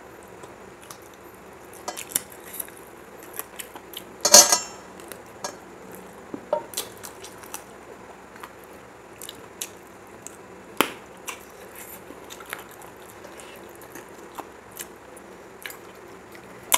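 A person eating rice and chicken curry by hand: scattered small chewing and mouth clicks with fingers brushing a brass plate, and one louder rough noise about four seconds in.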